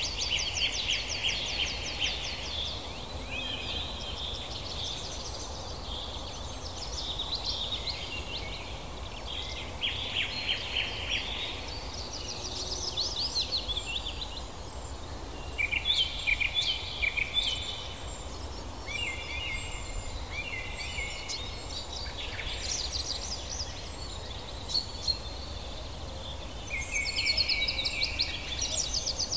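Songbirds singing: fast high trills and chirping phrases that follow one another every second or two, over a steady low background noise.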